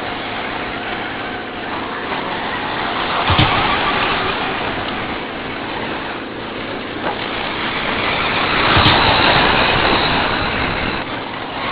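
Electric 4x4 short course RC trucks racing on a dirt track, their motors and tyres running as a steady noise that swells as trucks pass close. Two sharp knocks, about three and nine seconds in.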